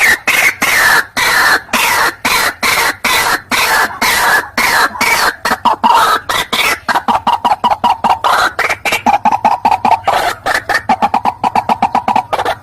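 White-breasted waterhen calling in a lure recording: a rapid string of harsh clucking notes. In the first half the pitch glides up and down; from about halfway the notes settle into a steadier, quicker run.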